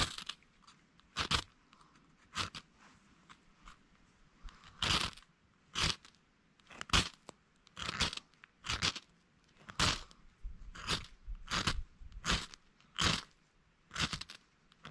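A knife shaving curls off a dry split stick, one short scraping crunch per stroke, about one stroke a second.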